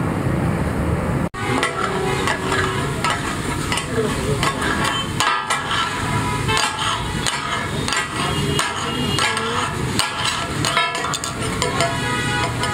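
Mutton chops frying and sizzling on a large flat iron tawa, with metal spatulas scraping and clacking against the griddle in quick, irregular strikes. The first second is street traffic, which cuts off suddenly.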